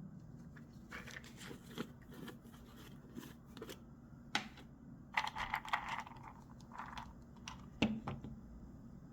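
Irregular clicks and clatter from a mechanical keyboard and its parts being handled, in uneven clusters, over a low steady hum.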